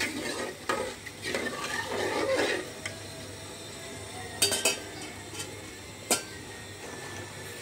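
Metal spoon stirring and scraping through rice and broth in an aluminium cooking pot, with a few sharp clinks of the spoon against the pot later on.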